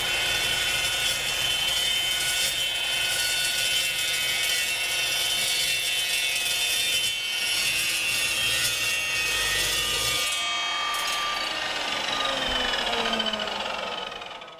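Chop saw cutting through 1½-inch galvanized steel plumbing pipe, a loud steady grinding whine. About ten seconds in the cut ends and the saw motor winds down, its whine falling in pitch until it stops near the end.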